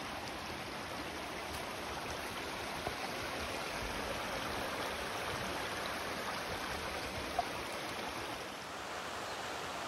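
Rocky creek rushing steadily over stones and shallow riffles, a constant even wash of water.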